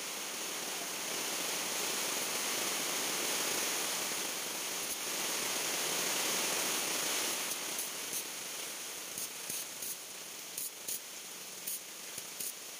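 Stick (arc) welding on steel roller chain: a steady hiss that eases after about seven seconds, then a string of short crackling spurts as the electrode is tapped against the chain to strike and hold the arc.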